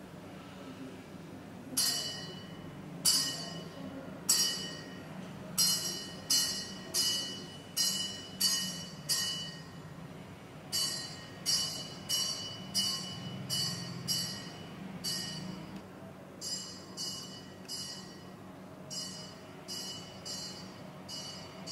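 Bright metallic struck sounds with a short ringing tone, repeating one or two times a second in an uneven rhythm from about two seconds in, over a low steady hum.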